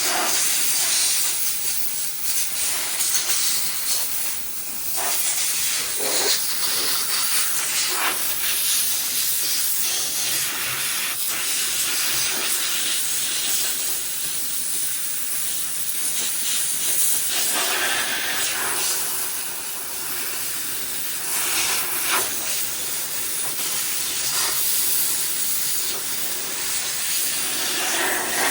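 Small handheld steam cleaner blasting steam with a continuous hiss that swells and eases as the jet is played over the engine parts, lifting loose paint and blowing off dirt.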